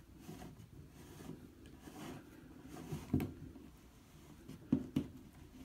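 Faint handling sounds of a new chrome tub drain being pressed and hand-turned into the bathtub's drain opening: low rustling with a few small metallic clicks, one about three seconds in and two close together near the end.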